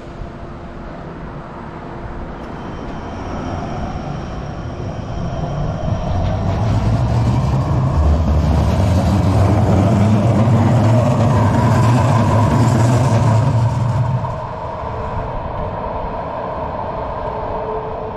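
Stadtbahn light-rail train running past on street track: the rumble builds over several seconds, stays loud for about seven seconds, then falls away sharply.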